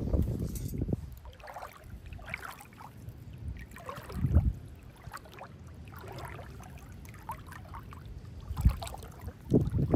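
Shallow river water splashing in the first second, then quieter sloshing and trickling as a metal detector coil is swept underwater, with two short dull thumps.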